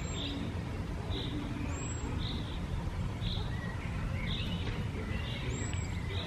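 Birds calling outdoors: a short high call repeated about once a second, with a few fainter chirps between, over a steady low rumble of outdoor noise.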